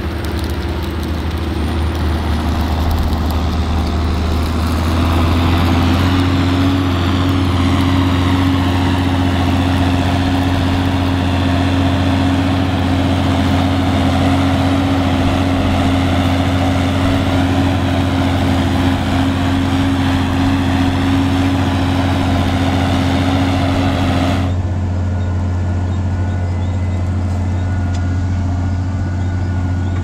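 Tractor diesel engine running steadily under ploughing load, a deep steady drone. About 25 s in the hiss drops away and the engine sounds duller and more muffled.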